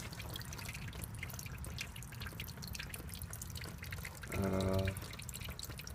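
Water dripping from a leaking hot tub's plumbing, many small irregular drips. A short low hum sounds about four seconds in.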